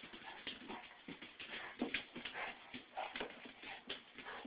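Faint scuffling and small dog noises from a mother dog and her puppy playing together.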